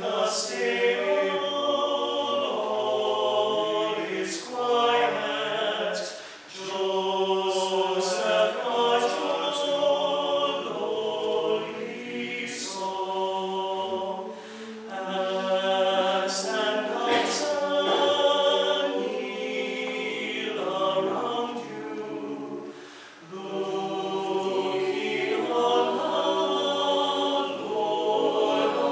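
Small mixed choir singing a cappella: a slow Christmas lullaby in long held phrases, with short breaks for breath between them.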